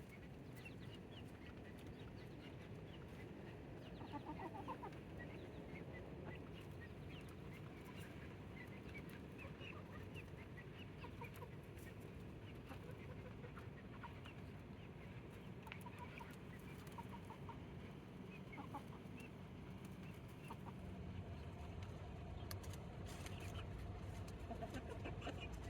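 Backyard chickens clucking softly, with many short scattered calls over a steady low background rumble.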